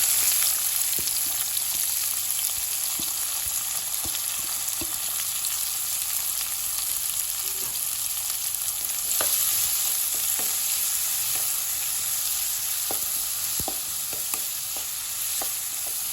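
Chopped onions, garlic and green chillies sizzling steadily in hot oil in a kadai, with scattered light taps and scrapes of the stirring spoon. The sizzle gets a little louder about halfway through.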